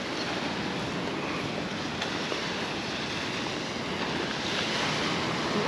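Surf washing onto a beach, a steady rushing noise that swells a little about two-thirds of the way through, mixed with wind blowing across the microphone.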